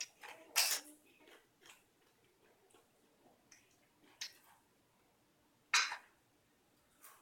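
A young girl's short, dry coughs, three of them a few seconds apart, with quiet between. The cough comes from a cold.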